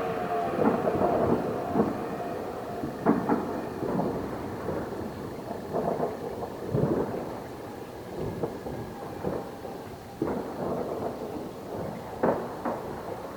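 A Federal Signal Model 2 siren's falling tone dies away in the first second, then New Year's fireworks and firecrackers go off in irregular booms and pops every second or two.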